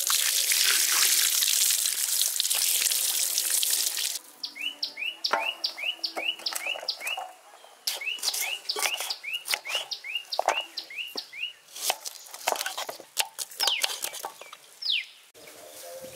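Water pours or runs for about the first four seconds. Then a bird gives two runs of short, quick rising chirps, about three a second, over scattered sharp clicks and knocks.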